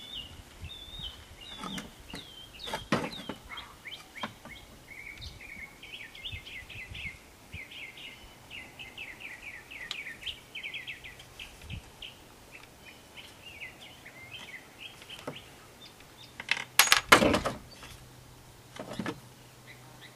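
Small songbirds chirping and twittering, with quick trilled runs in the middle stretch. A few scattered knocks, and a short loud clatter about three-quarters of the way through.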